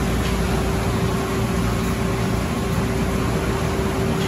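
Automatic car wash tunnel machinery running: a steady, even noise with a constant hum under it.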